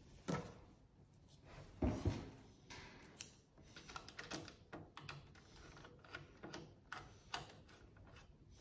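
Front panel of a Nakamichi RX-202 cassette deck being pushed and worked onto its chassis by hand: a thump right at the start and another about two seconds in, then a run of light clicks and knocks as it is lined up.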